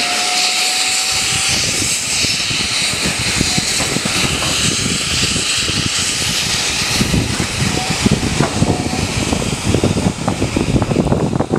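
Steam train moving slowly through a station, heard from an open carriage window: a steady rushing hiss of steam and air, with irregular knocks and chuffs from the locomotive and wheels that grow stronger about halfway through.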